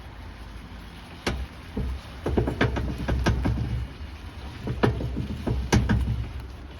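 Creaking and clicking from a car's driver-side rear wheel and suspension as the car is rolled forward and back by hand in neutral, over a low rumble of the car rolling. It starts about a second in and comes in two runs of sharp creaks.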